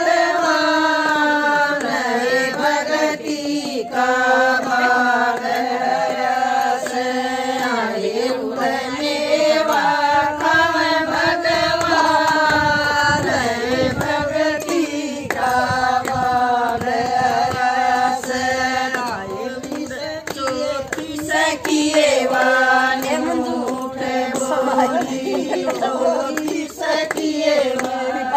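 A group of women singing a Haryanvi bhajan together in unison, clapping their hands in time.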